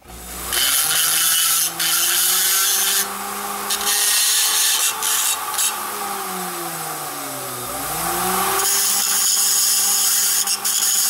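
Small handheld rotary tool running, its thin bit grinding against the steel inside a chainsaw muffler to knock off welding spatter balls. It comes in three spells of high grinding hiss over a steady motor whine, and the motor's pitch sags and recovers about two-thirds of the way through.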